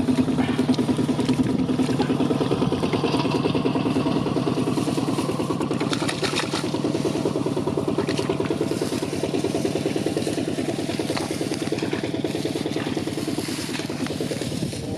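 A small engine running steadily with rapid, even firing pulses, slowly growing fainter.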